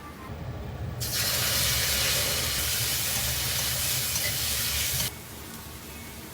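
Water running, starting abruptly about a second in and cutting off sharply about four seconds later.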